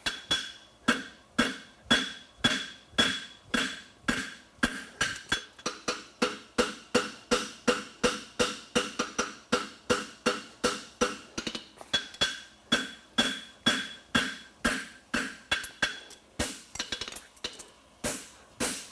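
Farrier's hammer striking a hot steel horseshoe on an anvil, a steady run of blows about three a second, each with a bright metallic ring. The blows come more sparsely near the end.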